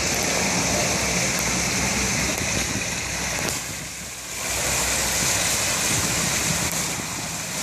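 Water pouring down an artificial rock waterfall: a steady rushing, with a low engine hum underneath. Both dip briefly about four seconds in.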